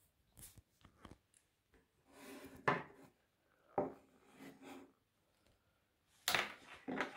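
Beech wooden utensils being handled and laid down on paper over a table: a few short wooden knocks with brief rubbing scrapes between them, the sharpest knocks about a third of the way in and again near the end.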